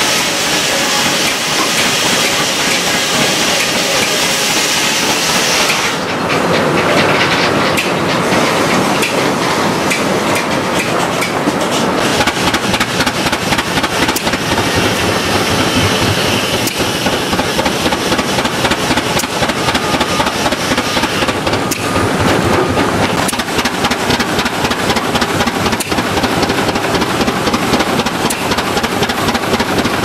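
For the first several seconds, a sawmill runs with a loud hissing rush. After a change about six seconds in, a Rumely OilPull tractor's engine runs under belt load driving the mill, with a steady beat of sharp exhaust pops.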